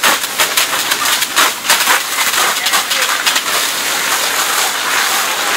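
Burning wood framing of a house fire, crackling and popping densely over a steady hiss.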